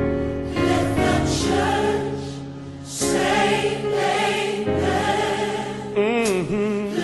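Gospel choir singing held chords in a passage without clear words, with a solo voice bending and wavering in pitch near the end.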